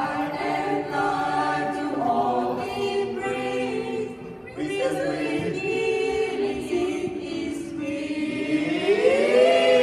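Choir singing held chords, with a short break about four and a half seconds in and the voices rising to a louder held chord near the end.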